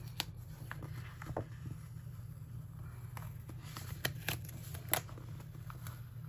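Light paper handling as a large sticker is peeled up off a planner page: scattered soft ticks and rustles, over a low steady hum.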